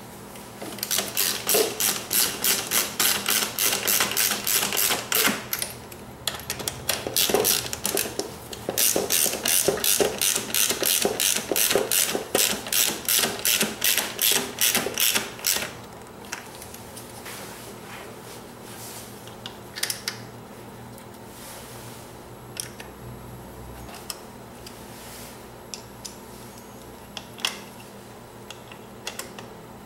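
Hand ratchet with a T-40 Torx bit clicking rapidly, about four clicks a second in spells, as the fuel-tank retainer bolts are run in. About halfway through the ratcheting stops, leaving only a few scattered single clicks.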